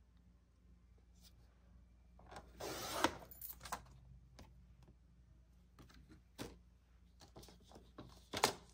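Sliding-blade paper trimmer cutting a laminated sheet: a scraping swipe of the slider along its track about two seconds in, ending in a sharp click, then light clicks and rustles as the stiff laminated pieces are handled, and another short scrape near the end.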